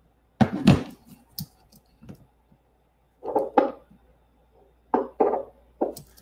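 A handheld Doppler ultrasound unit's speaker giving short irregular bursts of noise, some in close pairs, as its probe is handled before gel is applied, so no clear pulse signal yet.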